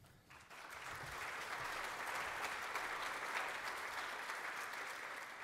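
Audience applauding, swelling over the first second or so and then holding steady.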